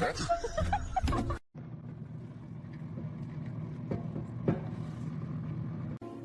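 Loud mixed sound with music for about the first second, then a sudden cut to a steady low rumble like a running vehicle, with two faint knocks near the middle.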